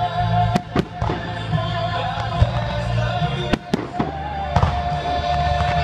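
Fireworks going off over music with long held notes: sharp bangs in a pair about half a second in, another pair about three and a half seconds in, and one more a second later.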